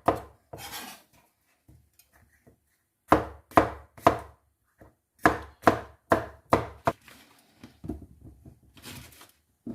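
Knife chopping vegetables on a cutting board: a few strokes about three seconds in, then a quicker run of five or so, then softer cuts near the end.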